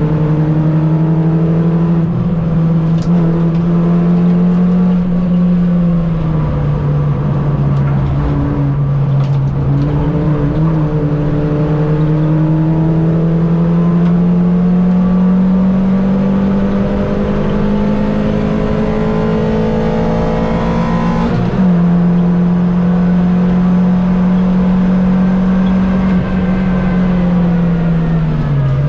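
Mini Cup race car's four-cylinder engine running hard at racing speed, its note climbing slowly along the straights and dipping briefly a few times, with a sudden change about 21 seconds in and a drop near the end as the car lifts or changes gear.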